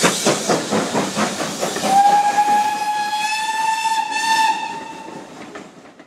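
BR Standard Class 4 2-6-0 steam locomotive 76017 working a passenger train: quick exhaust beats, about five a second, then a long blast on its steam whistle about two seconds in, held for about three seconds. The sound fades out near the end.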